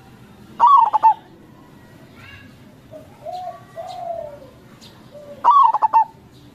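Zebra dove (perkutut) cooing: two loud bursts of quick stuttering coos, about five seconds apart, with softer, lower coos in between.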